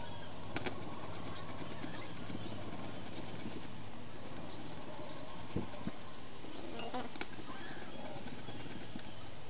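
Peeled white ube rubbed by hand over a flat metal grater, a scratchy rasp with each stroke, a few strokes a second.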